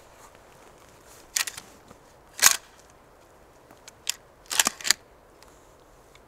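A seated hunter shifting and handling a shotgun: several short rustling clicks and crackles, the loudest about two and a half seconds in and a quick cluster near the end.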